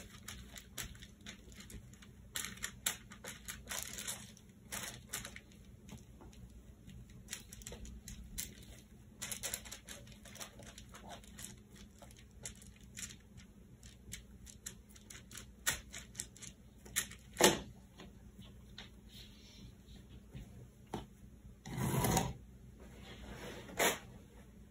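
Paintbrush strokes scratching and dabbing glue over a composition book's cover on wax paper: a run of short, irregular scratchy strokes, with a louder rustle near the end.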